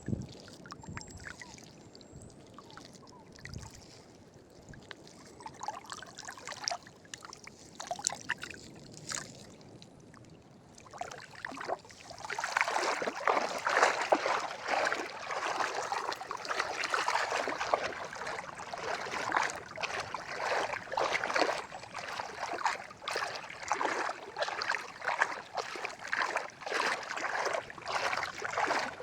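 Water splashing and trickling, quiet with scattered small clicks at first, then much louder and busier from about eleven seconds in.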